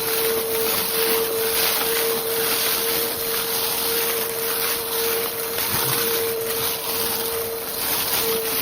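Vacuum cleaner running with a steady motor whine under the rush of air, pushed back and forth quickly so the suction noise swells in even strokes about twice a second.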